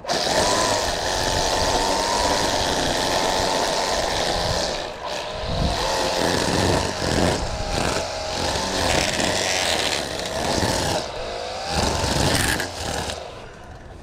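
Small petrol engine of handheld lawn-care equipment running at high speed, its pitch dipping and rising several times as the throttle is eased and opened again. It starts abruptly and tails off near the end.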